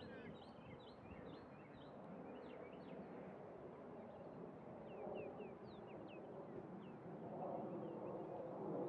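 Small birds chirping, with many short high chirps scattered throughout, over a faint steady outdoor background noise.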